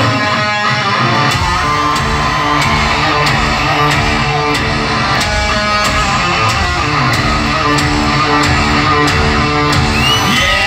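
Live hard rock band playing loudly: electric guitars over a steady drum beat, heard from the audience at a concert.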